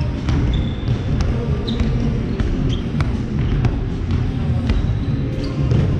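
Handballs bouncing and slapping on a wooden sports-hall floor during a warm-up: irregular sharp thuds, a few short squeaks of shoes on the floor, over a steady low rumble.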